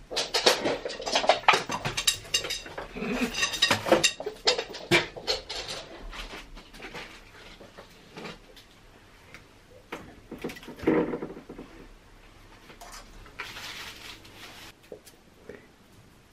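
Glass jars and bottles clinking and knocking against each other and the shelves of a refrigerator door as items are handled, a rapid clatter over the first several seconds and another short burst about ten seconds in.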